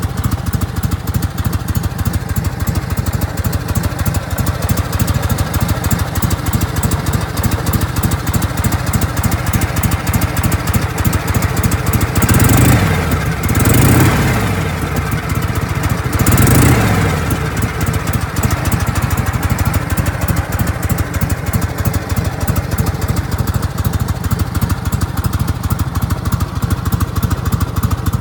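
1984 Harley-Davidson FLH Shovelhead V-twin engine idling with a steady pulse, revved three times in quick succession about midway, each rev rising and falling back to idle.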